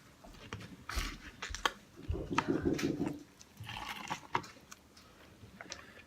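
Slime being squished and worked by hand: scattered wet clicks and snaps, with a longer bout of squelching about two seconds in.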